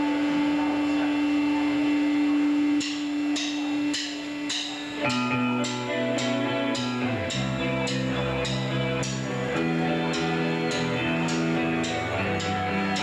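Live shoegaze rock band: a steady held electric guitar note at first, then about three seconds in a drum beat starts with about two sharp strokes a second, and about two seconds later bass and guitars come in with changing chords.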